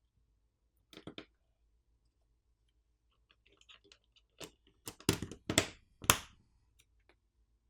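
Small clicks and taps of smartphone parts being handled and fitted back together during reassembly. A short cluster comes about a second in, then a run of clicks that grows louder, with the sharpest snaps a little past halfway.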